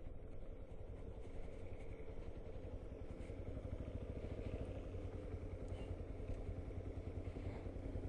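Yamaha XTZ 250 Ténéré's single-cylinder engine running steadily at low revs, with a low rumble.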